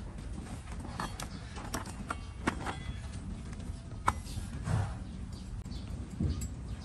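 Large flat hoof-trimming blade paring the overgrown horn of a donkey's front hoof braced on a wooden block: irregular sharp scrapes and clicks of the steel cutting through hoof wall, with a few dull knocks.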